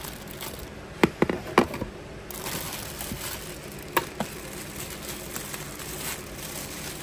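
Rummaging through stored items by hand: a quick cluster of sharp knocks and clicks about a second in, two more around four seconds, and rustling between.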